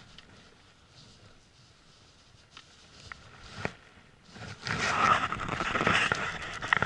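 A few faint clicks, then about halfway through a loud rustling and scraping of a padded jacket rubbing close against the microphone as the angler moves.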